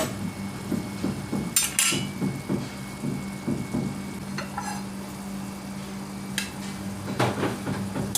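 A cooking utensil stirring and scraping in a pan of escabeche over low sizzling, with a few sharp scrapes and clicks against the pan; the dish is just cooked.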